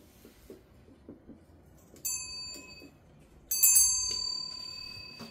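A small metal bell struck twice, about two seconds in and again a second and a half later. The second strike is louder and rings on in a slowly fading high tone.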